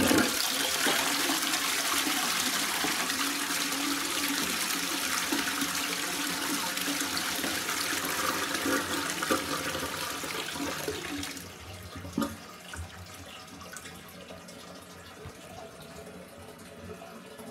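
Armitage Shanks Magnia low-level toilet flushing: a loud rush of water through the bowl for about eleven seconds, then cutting down to a quieter steady trickle as the cistern refills.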